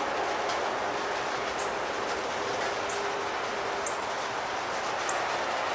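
Steady outdoor hiss with a small bird's short, high chip note repeating about once a second.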